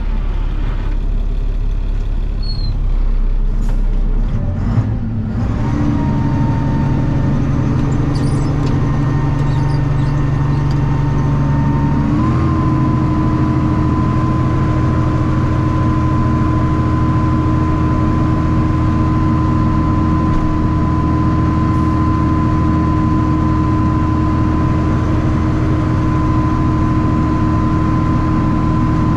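A 1985 dump truck's engine running at idle with its PTO-driven hydraulic pump engaged. A steady whine comes in about five seconds in and steps slightly higher about twelve seconds in.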